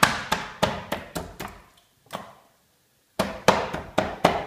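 Cleaver pounding raw chicken on a plastic cutting board, sharp blows about three a second, to tenderise the meat. The blows pause for about a second and a half in the middle, with one lighter stroke, then start again.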